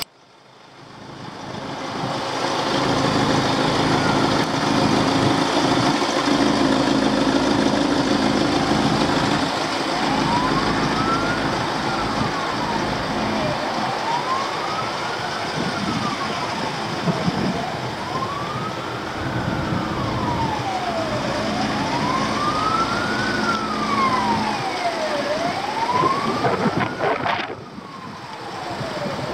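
A siren wailing, its pitch rising and falling slowly about every four seconds, from about ten seconds in. Underneath it runs a steady low hum and a windy, traffic-like rush, and the hum is loudest in the first ten seconds.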